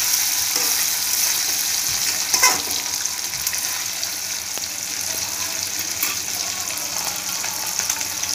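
Fish pieces frying in hot oil in a metal kadai: a steady sizzle, with one short knock about two and a half seconds in.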